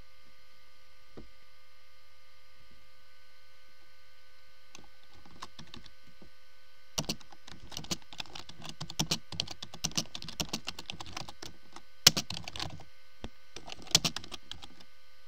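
Typing on a computer keyboard: rapid runs of key clicks starting about five seconds in, with a short pause and a couple of sharper, louder strokes near the end. A steady electrical hum with faint steady whining tones sits underneath throughout.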